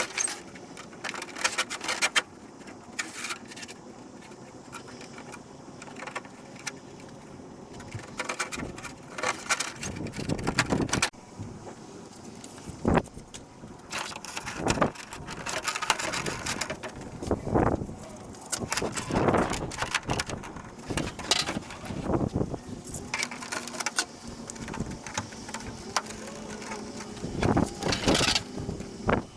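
Irregular clicks, knocks and scraping noises, like hard plastic parts being handled and worked on a bench, over a faint steady hum.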